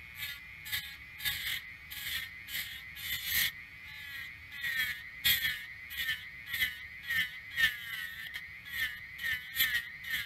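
Dremel rotary tool on a flexible shaft, running with a steady high whine. Its small wheel is pressed in short strokes against the steel blade of antique shears, giving about two scraping bursts a second, and the whine dips in pitch under each stroke.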